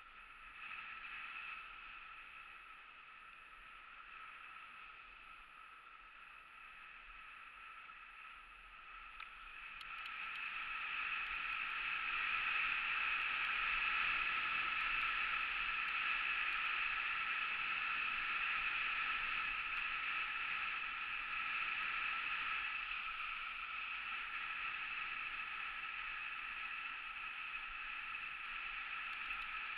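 Steady, muffled rushing of skiing downhill: skis sliding over packed snow and wind passing over the action camera, louder from about ten seconds in.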